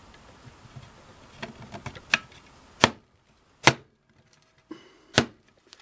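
Mercury sewing machine foot pedal being bumped and pushed to snap its metal cover over the base: a few light clicks, then four sharp knocks spaced roughly a second apart as the cover's angled bump-outs are forced over the end.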